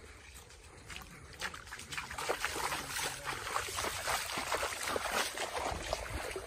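Footsteps squelching and splashing through shallow muddy water on a waterlogged path, an irregular run of wet slaps that gets louder about two seconds in.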